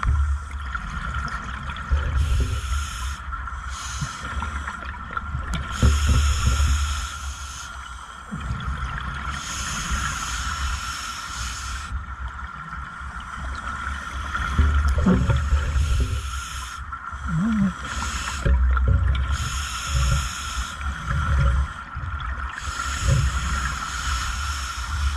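Scuba diver breathing through a regulator underwater: a hiss of air drawn in, then a burst of exhaled bubbles, repeating every few seconds, over a steady faint whine.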